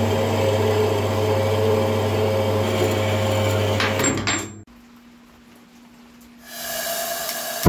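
Metal-cutting band saw running and cutting a square steel bar, a steady motor hum under the blade noise, cutting off suddenly about four and a half seconds in. After a quieter stretch with a low steady hum, a hiss rises near the end, the gas feeding a gas forge burner, and closes on a sharp loud pop as it lights.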